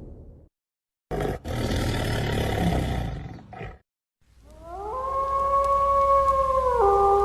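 A large wild animal's harsh, rough roar lasting about two and a half seconds. After a short gap, a long wailing tone rises in and holds steady, dropping in pitch near the end.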